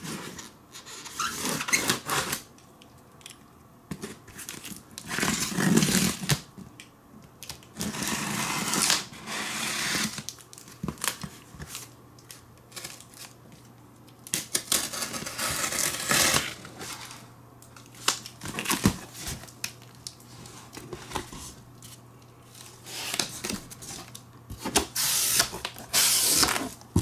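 Knife slitting packing tape on a corrugated cardboard box, in repeated scraping runs of a second or two each with sharp clicks between. Near the end the tape tears and the cardboard flaps rustle as the box is opened.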